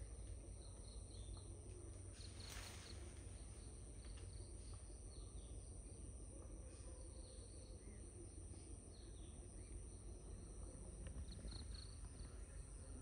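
Faint outdoor ambience: a steady high-pitched insect drone with scattered faint bird chirps over a low rumble, and one brief rustle-like burst about two and a half seconds in.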